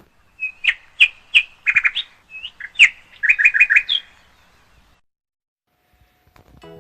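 Bird chirping: a series of short, high chirps, some in quick runs of four or five, stopping about four seconds in.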